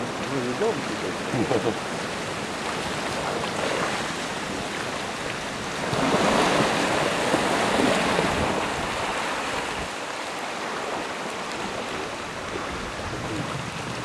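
River in spring ice drift: fast-flowing water carrying broken ice floes, a steady rushing wash that swells louder for about two seconds near the middle.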